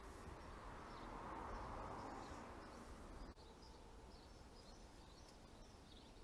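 Near silence: faint outdoor background noise, a soft hiss that swells over the first three seconds and cuts off abruptly a little after three seconds in.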